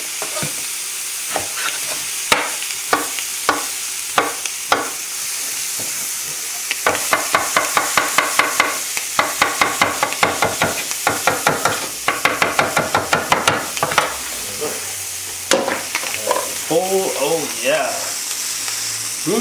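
Chef's knife cutting pineapple on a wooden cutting board. Single knocks come at first, then rapid chopping at about four strokes a second. Underneath runs the steady sizzle of ahi tuna searing in a hot grill pan.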